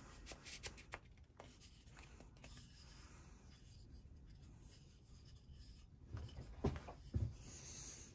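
Faint handling of wooden bridle-joint pieces: light rubbing and small clicks of wood on wood, then a few dull knocks near the end as the pieces are moved on the wooden workbench.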